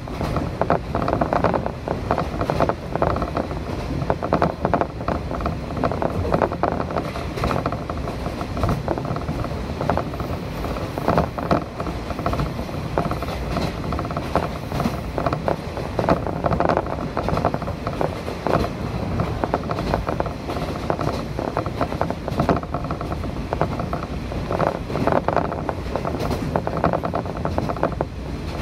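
Train running steadily, heard from inside the carriage: a continuous low rumble with irregular rattling and clatter of the wheels on the track.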